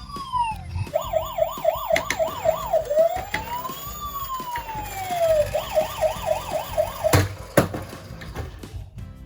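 Toy police car sirens: a fast electronic warble, then one slow rising-and-falling wail, then the fast warble again. Two sharp knocks come near the end, over a low rattle.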